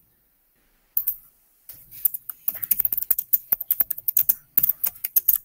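Typing on a computer keyboard: after a near-silent start with a single click about a second in, a fast run of key clicks from about two seconds in.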